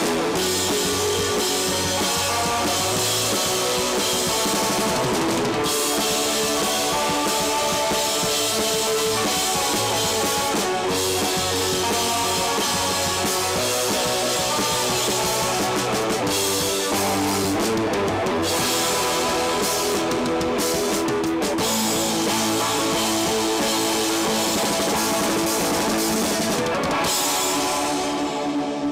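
Live rock band playing without vocals: two electric guitars, electric bass and drum kit, loud and steady. Near the end the drums and cymbals stop and the guitars and bass ring on as the song closes.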